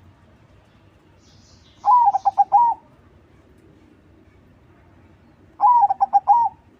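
Zebra dove (perkutut) of a crossbred contest strain cooing twice. Each phrase is an opening note, a quick run of short notes and a drawn-out closing note.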